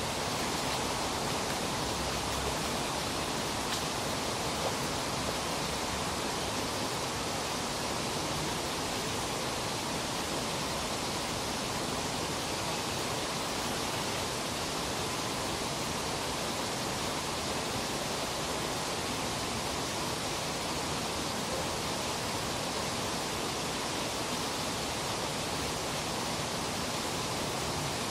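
Steady rush of river water, an even noise that does not change and covers every other sound.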